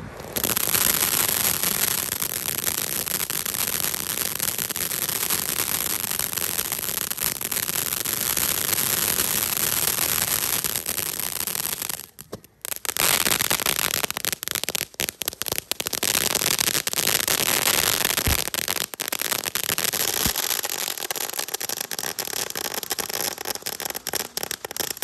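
A ground firework fountain spraying: a steady loud hiss of sparks with crackling mixed in. It drops out briefly about halfway through, then carries on with more crackles.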